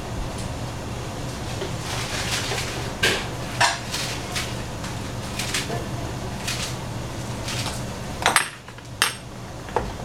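Scattered sharp metallic clinks and taps of kitchen pots and dishes, a few at a time, over a steady low hum. The loudest clinks come together about eight to nine seconds in.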